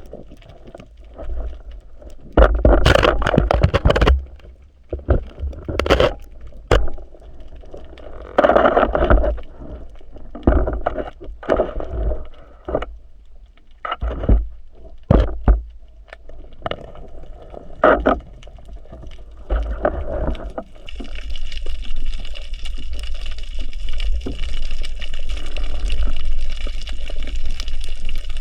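Water sloshing and splashing in irregular surges, with heavy low rumble, then an even, steady rushing hiss from about twenty seconds in.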